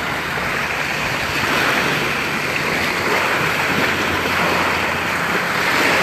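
Small Gulf of Mexico waves washing onto a sandy beach: a steady wash of gentle surf, with some wind on the microphone.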